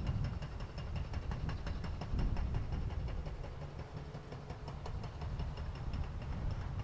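An engine running steadily, with a high steady whine and a fast, even ticking over a strong low rumble.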